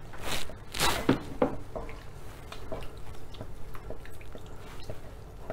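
Wooden spatula stirring milk into a flour-and-stock sauce in a frying pan: wet squishing and sloshing with light scraping, loudest in the first second or so, then softer irregular clicks as the stirring goes on.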